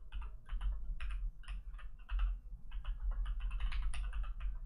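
Typing on a computer keyboard: a quick, irregular run of key clicks with a couple of brief pauses about two seconds in.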